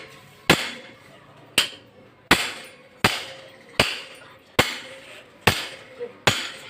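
Hammer blows knocking a crash-bent front fork tube of a Royal Enfield Bullet out of its steering yoke: about nine strikes at a steady pace of a little over one a second, each ringing briefly. The tube is jammed tight and needs heavy hammering to come free.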